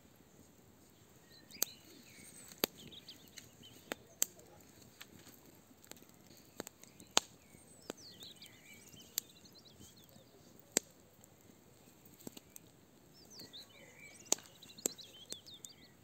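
Fire burning in a barbecue hearth, crackling with sharp, irregular pops, while a bird sings three short bursts of song.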